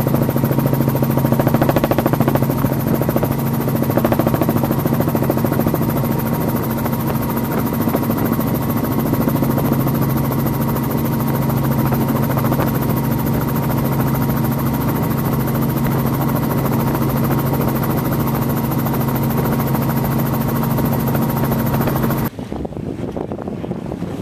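Helicopter heard from on board: steady, loud rotor and engine drone with fast blade chop. It cuts off abruptly near the end, leaving quieter wind and water noise.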